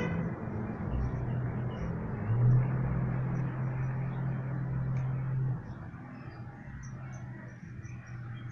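A vehicle engine running nearby, a steady low hum that swells briefly about two seconds in and drops away about five and a half seconds in.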